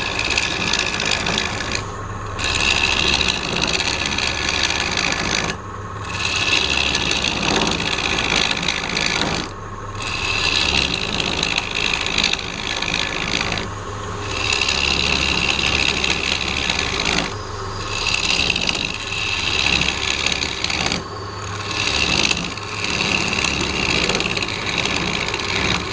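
Wood lathe running with a hand tool rasping against the spinning wood blank. The tool works in passes of about three to four seconds, each broken by a brief lift-off, over the steady low hum of the lathe motor.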